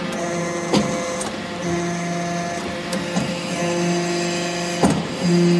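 A hydraulic metal-chip briquetting press is running. Its hydraulic power unit gives a steady hum that swells louder in three stretches of about a second each as the press cycles. Three sharp clanks come from the machine's moving parts.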